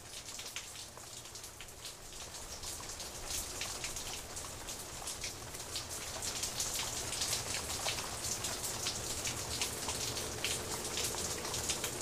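Steady rain falling on tree leaves: a dense hiss full of separate close drop hits, growing gradually louder.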